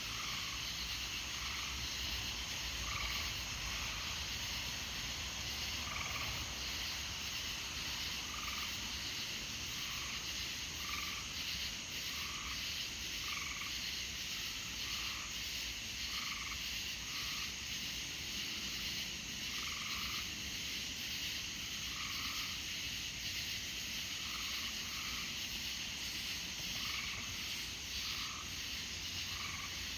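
Frogs croaking: short calls repeating about once a second over a steady, high-pitched chorus.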